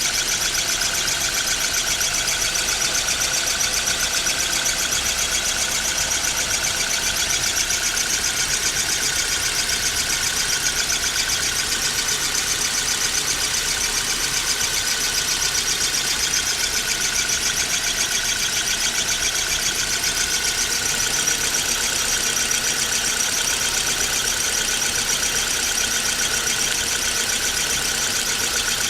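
Squeak from under the hood of a running Nissan Almera: a steady, high-pitched squeaking that pulses rapidly and keeps on unchanged over the engine's idle.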